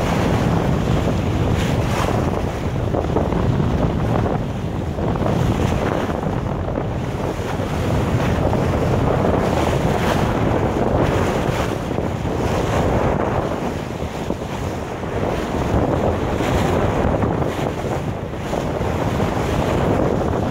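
Strong wind buffeting the microphone over the rush and splash of water along a sailboat's hull as it heels in about 20 knots of wind, swelling and easing every few seconds.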